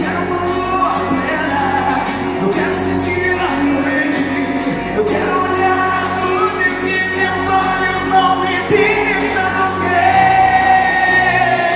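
Live MPB band performance: sung vocals over acoustic guitars and bass, heard from the audience in a large, reverberant concert hall.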